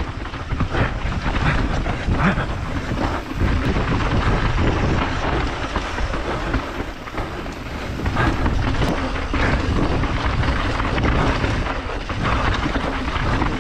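Mountain bike descending a dirt trail at speed, heard from a camera on the rider: tyres rolling and skidding over dirt, with a constant run of rattles and knocks from the bike over bumps, under heavy wind rumble on the microphone.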